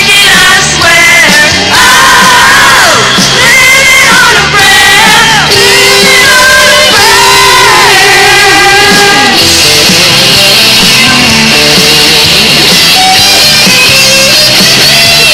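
Hair-metal-style rock song playing loud: a sung and shouted lead vocal over the band, and about nine seconds in the voice drops out while the band plays on.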